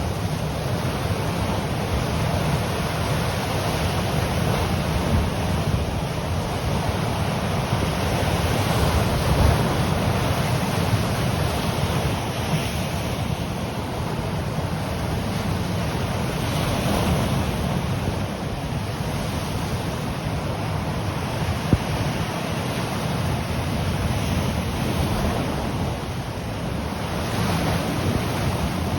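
Ocean surf washing against the coast in a steady rush that swells and eases every several seconds, with a low wind rumble on the microphone.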